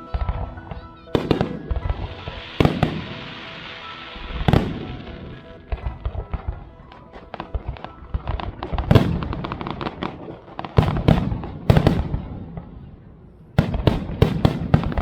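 Fireworks display: a series of sharp booms from bursting shells, mixed with dense, rapid crackling and a sizzling hiss. The busiest crackling comes from about the middle on, and there is a short lull before a fresh burst near the end.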